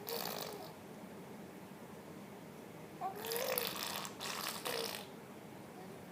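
Five-month-old baby blowing spit bubbles, a wet bubbling sound from the lips: a short burst at the start, then a longer bubbly stretch about halfway through in several spurts.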